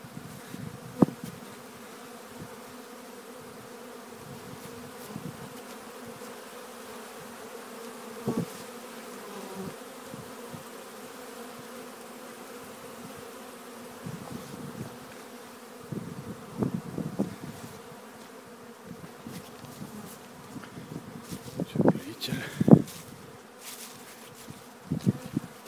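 Honeybees buzzing steadily around their hive entrances as the colonies make their spring cleansing flight after wintering. Every so often a bee flies close by with a louder buzz, most strongly near the end.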